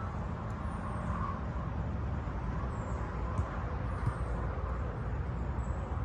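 Steady low rumble of wind buffeting the microphone over an open field, with two faint knocks of a soccer ball being kicked a little past halfway.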